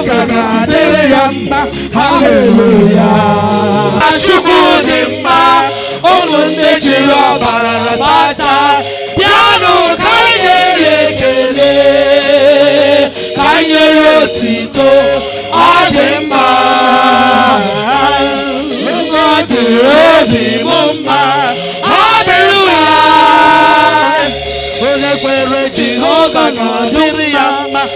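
Voices singing a worship song together over music, with some long held notes.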